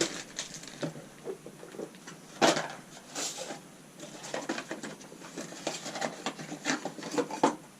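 Handling noise as a battery power adapter is fitted into a heated hoodie: fabric rustling with irregular small plastic clicks and knocks, the sharpest about two and a half seconds in and another near the end.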